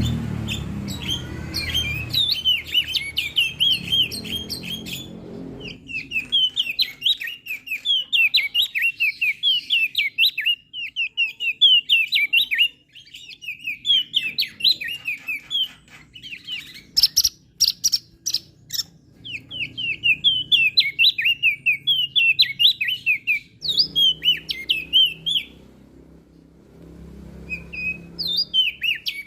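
Crested white-eye (opior jambul) singing: fast, twittering phrases of high chirping notes in repeated bursts with short pauses between them, with a few sharp ticks about seventeen seconds in.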